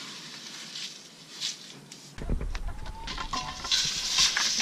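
Hens clucking a few short notes over rustling, with a low rumble that starts abruptly about two seconds in.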